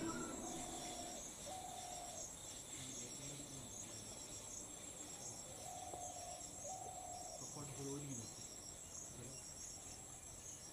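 Faint, steady high-pitched chirring of insects, with a regular pulse.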